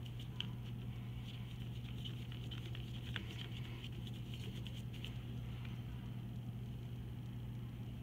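Paintbrush stroking and dabbing wet paint across paper, light scratchy ticks that stop about five seconds in, over a steady low hum.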